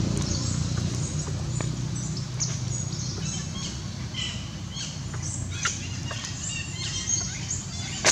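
Birds chirping: many short, high calls scattered throughout, over a low steady outdoor rumble.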